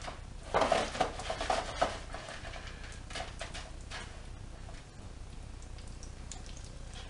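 Hands working chicken pieces in a plastic tray of flour and crumbs, giving a burst of crackly scraping and tapping about half a second to two seconds in, then a few lighter taps a second or two later.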